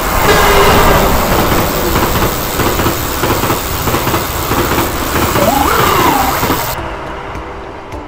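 Loud rushing noise of a passing vehicle that starts abruptly, with a short tone that rises and then falls near the end, fading away over the last second.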